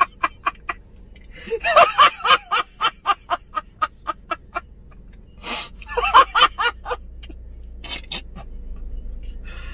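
A man laughing hard: a long run of rapid, regular bursts of laughter for about four seconds, then shorter bursts after brief pauses.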